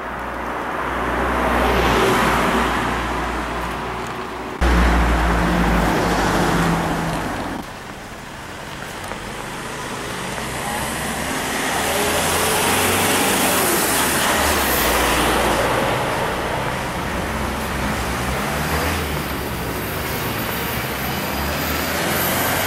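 Road traffic on a town street: cars and vans passing one after another, each swelling and fading as it goes by. About five seconds in, a low rumble cuts in suddenly.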